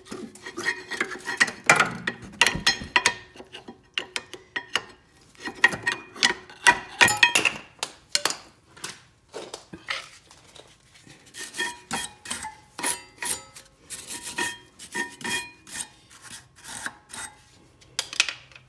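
Steel brake pads and their metal shims being handled and worked out of a rear brake caliper bracket: repeated metallic clinks, taps and scrapes, some ringing briefly, in busy clusters.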